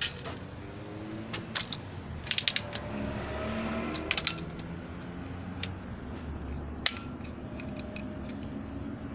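Metallic clicks and short ratcheting rattles from a Red Ryder lever-action BB gun being handled and cocked: a quick run of clicks about two seconds in, another about four seconds in, and a single sharp click near the end.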